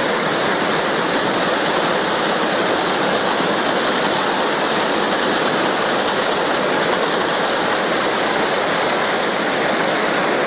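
Loud, steady roar of a large crowd cheering mixed with a crackling barrage of firecrackers; it drops away suddenly at the end.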